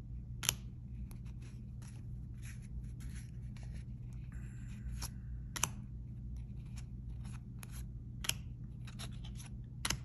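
A stack of 2022 Topps Series 1 baseball cards being flipped through by hand, card sliding against card: a run of short papery slides and snaps, a few sharper ones standing out, about half a second in, past the halfway mark and near eight seconds.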